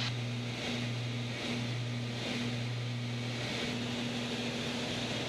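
Beechcraft Baron B55's twin piston engines and propellers droning steadily in cruise, heard inside the cabin, with the propellers just set back to 2,400 RPM. A low steady hum carries a higher tone that throbs at an even, slow rate.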